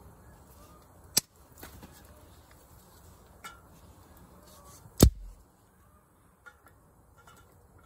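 Wood campfire crackling, with a sharp pop about a second in and a loud knock with a low thud about five seconds in, as a stick is handled at the fire.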